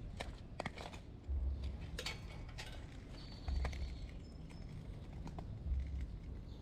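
Footsteps outdoors, with low thumps about every two seconds and scattered small clicks and knocks. A thin, high chirp comes about three seconds in.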